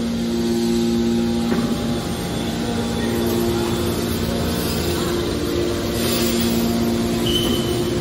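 Scrap car baler's electric motors and hydraulic pumps running with a steady mechanical hum and noise. The hum briefly drops out about a second and a half in, then returns.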